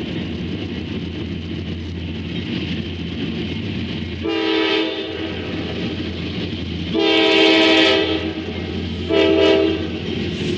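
Locomotive air horn sounding three blasts, short, long, short, the middle one the loudest. A steady train rumble runs underneath.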